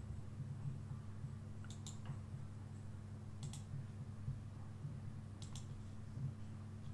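Computer mouse clicking: three quick double clicks, each a press and release, spread a couple of seconds apart. Under them runs a steady low hum.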